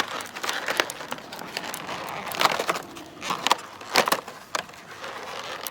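Stiff plastic packaging crackling and crinkling, with irregular sharp clicks, as a new wiper blade is worked out of its package.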